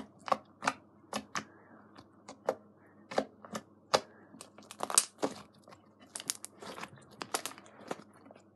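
Slime packed with foam beads being swirled and squeezed by hand, giving off irregular sharp clicks and crackling pops a little over two a second, the loudest about five seconds in. It is the clicky, crunchy sound of foam-bead slime and trapped air.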